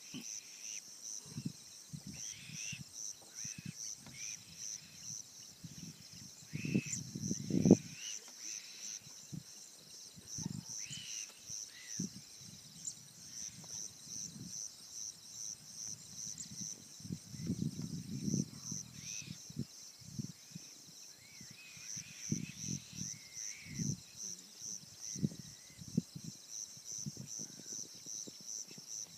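Insects, cricket-like, trilling in a steady, evenly pulsed high-pitched chorus, with scattered short bird chirps over it. Irregular low thumps and rumbles on the microphone come and go, the loudest about a quarter of the way in.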